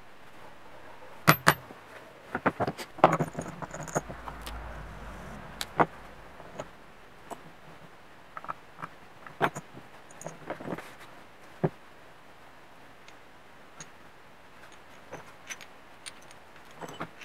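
Small metal tools and parts being handled on a wooden workbench: a scatter of sharp clicks and clinks, loudest and most frequent in the first few seconds, as a punch and parts are worked against a metal intake adapter plate.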